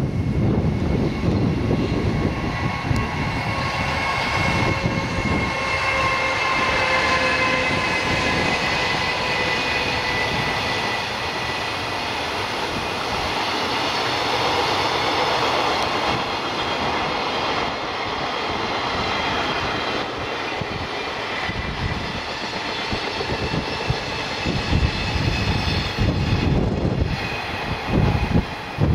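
JR Freight EF210 electric locomotive passing with a container freight train. Its motors whine in several steady tones that drift slightly lower, over the rumble and clatter of the container wagons rolling by. Low buffeting near the end.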